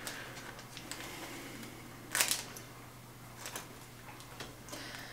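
Faint handling of a freshly opened pack of trading cards: a brief rustle about two seconds in and a few light clicks as the cards are handled, over a steady low hum.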